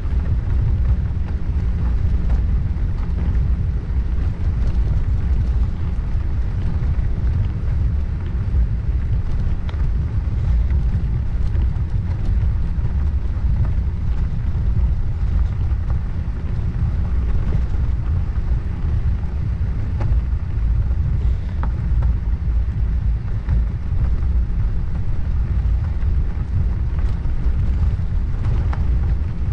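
Steady low rumble of wind on the microphone of a camera riding on a moving bicycle, mixed with tyre noise from the road, with a few faint ticks.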